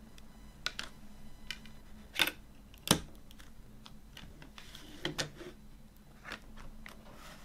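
Plastic CD jewel case being handled and closed: a scatter of sharp plastic clicks and taps, the loudest about three seconds in, with a cluster of clicks around five seconds as the lid snaps shut.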